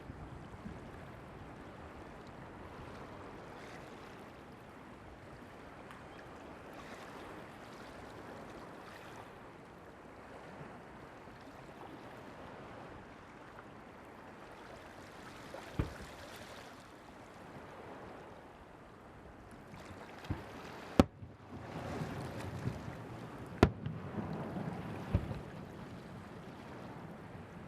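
Steady wash of surf and wind at the shore, with a handful of sharp firework bangs in the second half, bunched together with a rumbling crackle for a few seconds.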